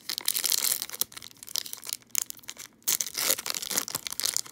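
Foil-lined wrapper of a Topps baseball card pack being torn open and crinkled by hand, an irregular crackling with short pauses.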